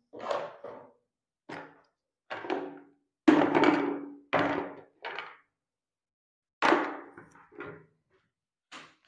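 A string of separate hollow knocks and clatters as bathroom items are put into a hand-held plastic tub, the loudest about three seconds in with a brief low ring.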